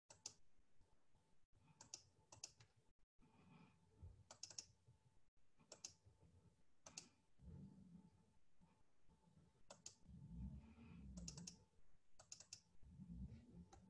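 Faint, scattered clicks of a computer mouse and keyboard, several coming in quick pairs like double-clicks, with a few soft low rumbles in the second half.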